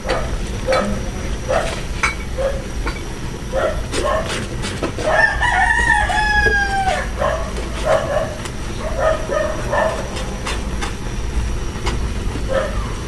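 A rooster crows once near the middle, a long call of about two seconds that drops in pitch at its end. A steady low rumble and scattered short sounds run underneath.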